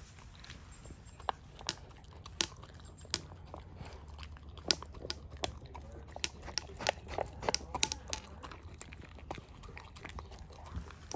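A dog eating dry kibble from a stainless steel bowl: irregular sharp crunches and clicks, thickest in the middle.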